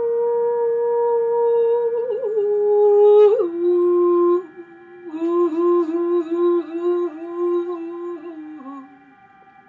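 Meditative music: a lone wordless voice holds a long note, slides down to a lower one, then sings a wavering, ornamented phrase over a faint steady drone. It fades out about nine seconds in.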